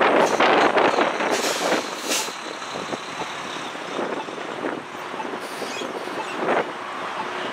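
Road traffic going by, with a loud rush of noise at the start and short sharp hisses about a second and a half and two seconds in.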